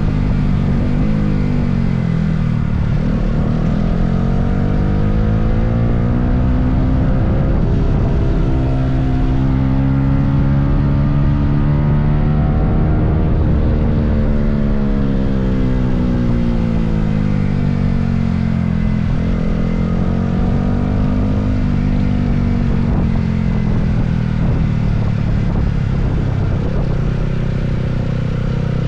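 Yamaha R15M's 155 cc single-cylinder engine running under way, its pitch rising and falling several times as the bike accelerates and eases off.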